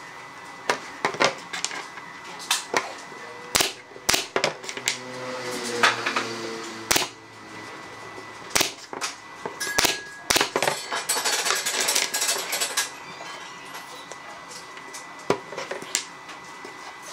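Pneumatic brad nailer firing several times, each shot a sharp crack, driving brads into the joints of a small hardwood frame. Lighter knocks of wooden pieces set down on the bench fall between the shots.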